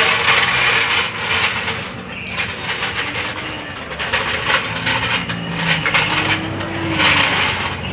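Ratchet wrench clicking in rapid bursts with short pauses between, undoing the four nuts that hold the rear axle of a Toyota Tamaraw FX to its brake backplate.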